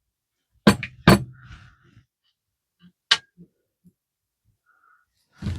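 Small metal parts of a Vibroplex telegraph key being handled during disassembly: two sharp knocks just under a second in, then a single sharp click around three seconds in and a few faint taps.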